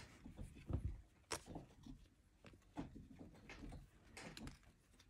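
Topps baseball cards being shuffled through by hand, one card slid off the front of the stack and tucked behind the others: faint scattered rustles and light taps, with a low thump just under a second in.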